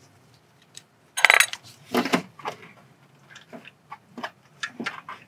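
Metal hand tools clinking and knocking against engine parts. A loud metallic clatter comes about a second in, followed by scattered light clinks and knocks.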